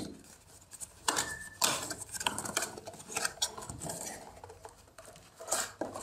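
Cardboard packaging handled and opened: an irregular run of short scrapes, rustles and taps as the folding box is unfolded and its inner tray slid out.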